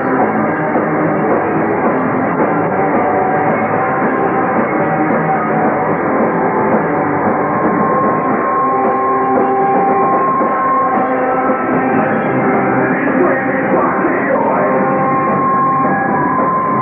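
Live rock band playing loud: distorted electric guitars, bass and drums with ringing cymbals, in one dense wall of sound. A steady high note comes in about halfway through and holds over it. Recorded on a camcorder tape, so the sound is dull with no top end.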